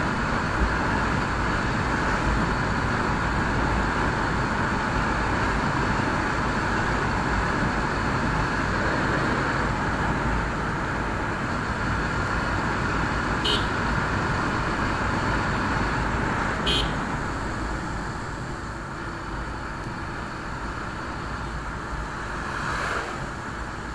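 Bajaj Pulsar motorcycle running at highway speed, a steady engine and road noise, with two short high beeps near the middle. The noise drops off in the last few seconds as the bike slows.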